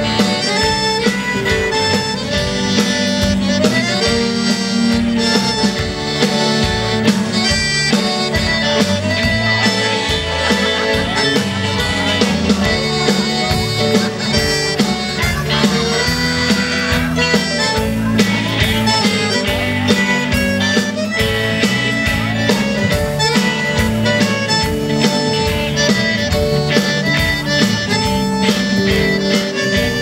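Instrumental band music: an accordion plays the lead melody over electric guitar and a steady beat.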